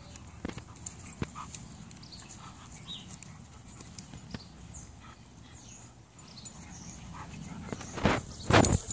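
Two smooth collies playing tug-of-war with a stick: scattered light clicks of teeth on wood, then a few short, loud, rough play growls near the end.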